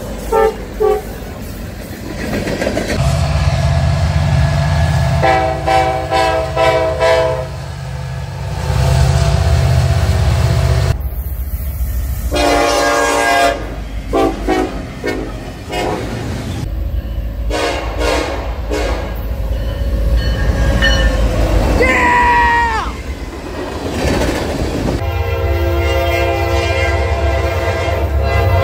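Norfolk Southern diesel freight locomotives passing close by with a heavy engine rumble and wheels clattering on the rails. Their multi-note air horns sound in several long blasts.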